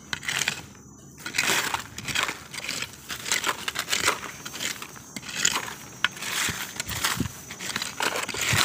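Dry leaf litter and stony soil being scraped and pushed aside with a stick: repeated irregular scraping strokes with dry leaves crackling and small stones clicking.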